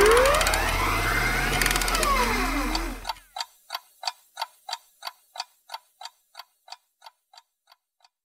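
A sweeping sound effect with tones gliding up and down ends about three seconds in. Then a pocket watch ticks steadily, about three ticks a second, fading out and stopping near the end.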